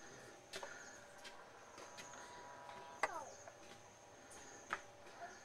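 Faint, high, steady insect trilling, with a few sharp clicks or knocks scattered through.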